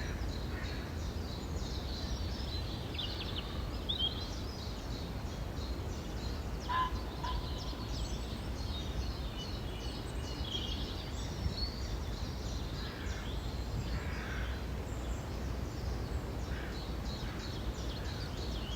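Springtime birdsong: several small birds singing and calling with many short chirps and trills, one lower two-note call about seven seconds in, over a steady low rumble.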